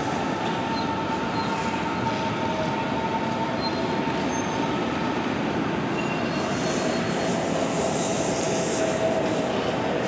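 Train running in the station: a steady rumble with a thin high whine held at one pitch, which gives way to a lower whine about six seconds in.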